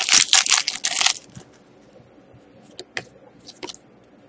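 Foil hockey-card pack wrapper being torn open and crinkled, loud for about the first second. Then come a few soft clicks and slides of the trading cards being handled.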